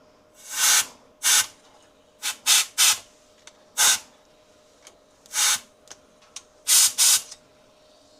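Canned compressed air fired in about nine short hissing blasts, some in quick pairs, blowing dried cilantro debris out of a freeze dryer.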